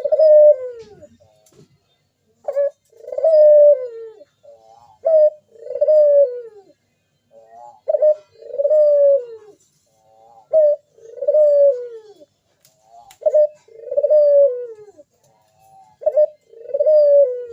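Local puter dove (ringneck dove) cooing its perched song: about seven repeated phrases, each a short opening note followed by a longer coo that falls in pitch, one every two and a half seconds or so.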